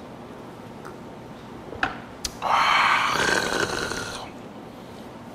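A man's loud, breathy exhale (a satisfied "kya") after knocking back a shot of soju, lasting nearly two seconds and fading out, preceded by two light clicks.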